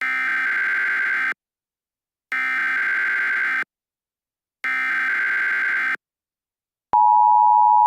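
Emergency Alert System SAME header: three bursts of digital data tones, each about 1.3 seconds long and about a second apart. About 7 seconds in, the steady two-tone EAS attention signal starts.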